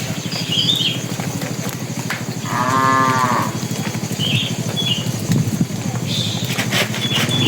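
A cow mooing once, a single call about a second long, over a steady low hum.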